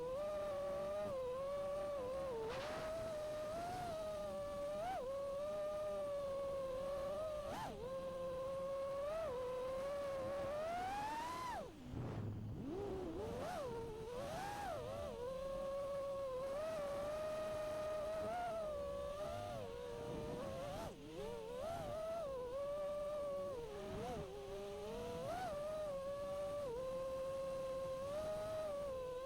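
5-inch FPV quadcopter's brushless motors and propellers whining, the pitch rising and falling with the throttle. About twelve seconds in the whine climbs steeply, cuts out briefly as the throttle is chopped, then picks up again.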